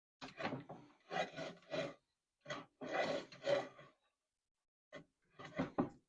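A series of irregular short scraping and rubbing strokes, eight or so, as parts of a Grizzly jointer-planer combo are handled and set up for planing.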